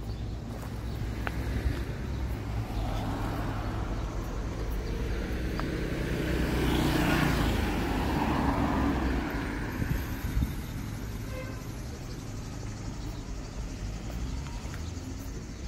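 A car passes close by on a street, growing louder, peaking about seven seconds in, then fading away.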